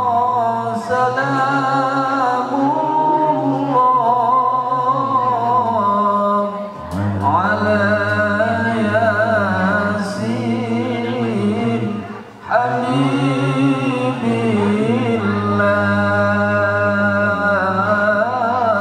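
A male qari chants a melodic Quran recitation (tilawah) into a microphone in long, ornamented phrases with a wavering, trilling voice. There are two short breaks, about six and twelve seconds in.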